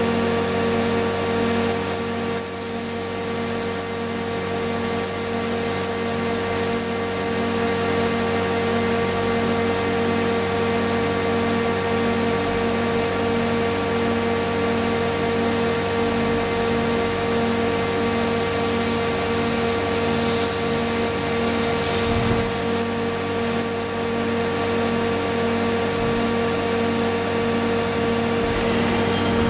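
Mori Seiki SL253BMC CNC lathe running: a steady mechanical hum with a high whine and a regular pulsing throb underneath.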